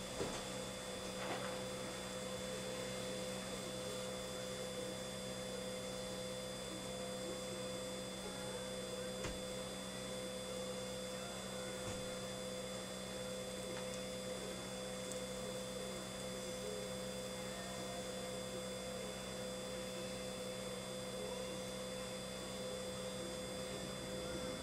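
Precision Profiler film thickness gauge running, its drive feeding a strip of plastic film through the measuring head with a steady hum of a few fixed tones. The hum cuts off at the very end as the gauge stops by itself with the sample complete.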